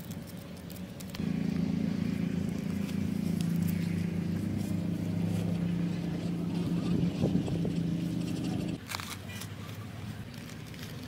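A steady, low-pitched engine drone, starting about a second in and cutting off suddenly near the end.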